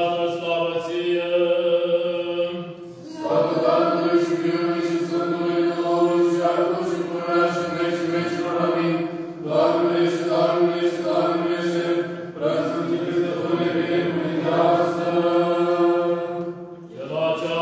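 Orthodox liturgical chant sung by men's voices in long held phrases, breaking briefly about three, nine and a half, twelve and a half and seventeen seconds in.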